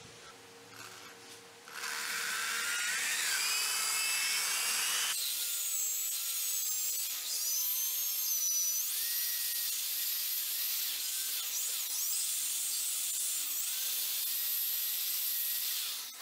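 High-speed rotary tool spinning a small sanding drum against the inside of a stainless steel nut, a high whine whose pitch repeatedly dips and recovers as the drum bears on the metal. It starts about two seconds in and stops just before the end.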